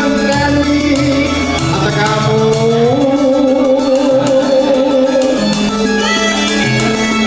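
A man singing a song into a microphone over live electronic-keyboard accompaniment with a steady bass line. About three seconds in, the voice rises into a long held note with vibrato.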